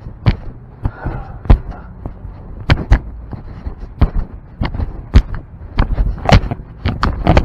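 A series of sharp, irregular knocks and thumps, one or two a second, coming faster near the end.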